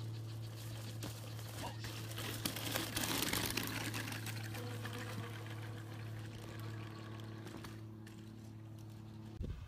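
A steady low hum with a few overtones above it, which stops shortly before the end. A brief rush of noise comes about three seconds in.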